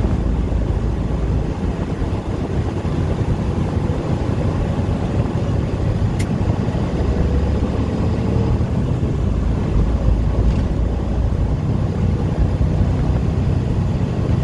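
Heavy truck's engine running as it drives, heard from inside the cab, with steady road and rain noise. A single sharp click about six seconds in.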